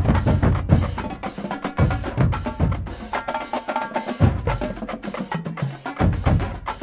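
Marching drumline playing a cadence: fast snare and quad-tenor strokes over heavy bass drum hits.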